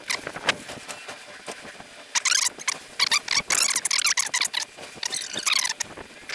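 Squeaky, high-pitched scraping strokes in several bursts, typical of old Permatex sealant being scraped and cleared off engine parts.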